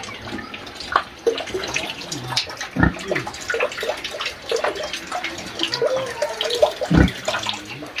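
Pigs coughing: two short, heavy coughs, about three seconds in and again about seven seconds in, over a steady run of wet snuffling and short grunts.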